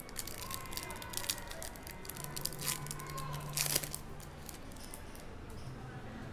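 Foil trading-card pack wrapper being torn open and crinkled by hand: a rapid run of crackles and rips over the first four seconds, the loudest near four seconds in, then softer rustling as the cards are drawn out.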